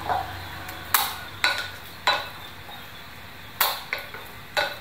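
Wooden spatula slapping a paste of minced chicken against a ceramic bowl, six sharp slaps at an uneven pace with a pause in the middle. The meat is being beaten to make it firm and springy.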